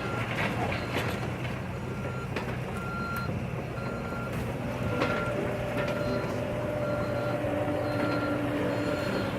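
Backup alarm on heavy equipment beeping at an even pace, about once every 0.7 seconds, over the steady hum of a diesel engine; about halfway through a steady engine tone rises in.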